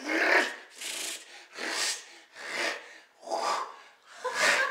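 A man's voice making a rhythmic series of harsh, rasping breath sounds into a microphone: six evenly spaced bursts, about one every three-quarters of a second, with no words.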